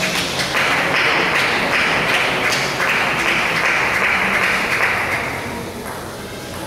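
Spectators applauding the end of a table tennis rally: a few seconds of clapping that dies away near the end.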